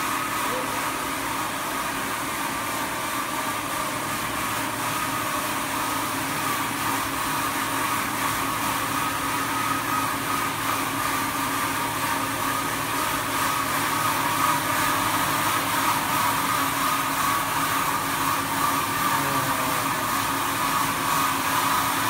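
Jonsen Sander SD300-WJS+3D wet deburring machine running, its planetary disk brush heads spinning over parts on the conveyor: a steady machine hum with a high whine and hiss, growing a little louder in the second half.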